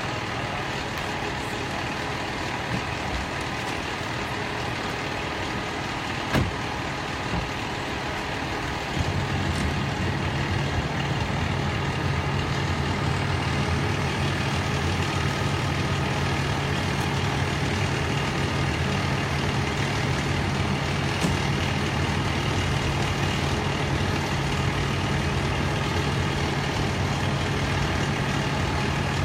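Fire engine's diesel engine idling steadily, the low hum becoming louder and fuller about nine seconds in. A single short knock about six seconds in.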